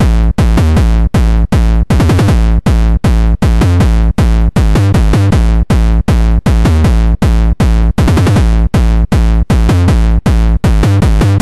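Loud electronic music with a drum-machine beat and synthesizer, pounding at a fast, steady pace with a heavy bass.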